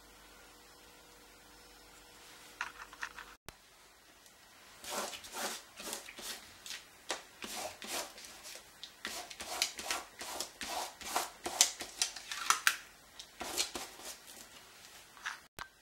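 Fingers rubbing quickly over watercolour paper, lifting dried masking fluid off the painted wave lines: an irregular run of dry, scratchy rubbing strokes, picking up after a few seconds and stopping just before the end.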